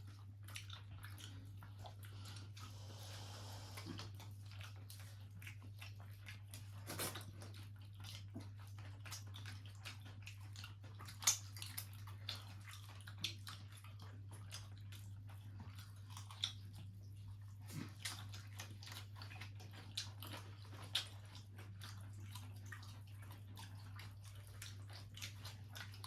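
Faint eating sounds: scattered small clicks and wet squishes of fingers picking through fish and curry gravy, with quiet chewing, over a steady low hum.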